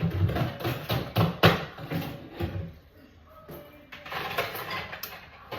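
Dishes and kitchen items knocking and clattering, a quick run of knocks in the first half and a looser rattle near the end, as when loading a dishwasher.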